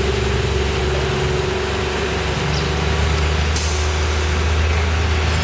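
TMC RTS transit bus running with a steady low diesel rumble as it pulls up and stops, its air brakes letting out a sudden hiss about three and a half seconds in.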